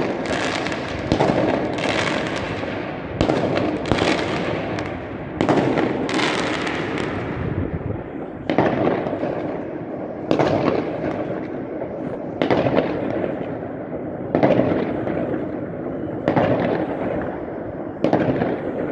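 Fireworks bursting between high-rise apartment blocks: sharp bangs come about every one to two seconds, each with a long echoing tail, over a continuous background of more distant bangs.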